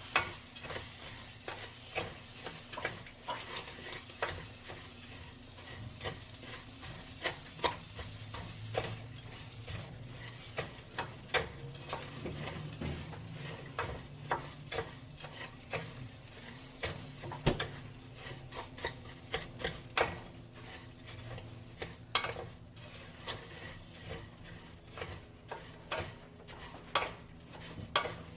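Raw rice frying in a little oil in a pot, sizzling softly, while a spoon stirs it and clicks and scrapes irregularly against the pan. The rice is being toasted golden brown before the liquid goes in.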